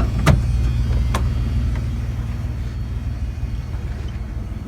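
Vehicle engine running with a steady low rumble that eases off slightly, with a couple of short knocks in the first second or so.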